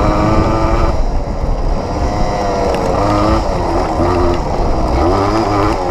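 Yamaha enduro motorcycle's engine pulling across rough ground off-road, its pitch rising and falling several times with throttle and gear changes.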